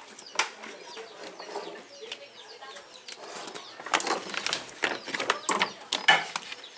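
Knocks, clunks and rustling from handling a homemade videoke speaker cabinet as it is turned over to show its underside. The knocks come mostly in the second half.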